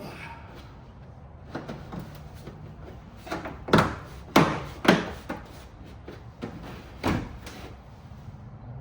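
A run of knocks and thumps as a hard plastic wheel well liner is pushed and knocked into place in a pickup's rear wheel well, loudest in the middle.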